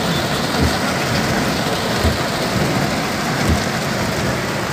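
Heavy rain pelting a car's roof and windshield, heard from inside the cabin. Low thumps come about every second and a half, from the windshield wipers sweeping.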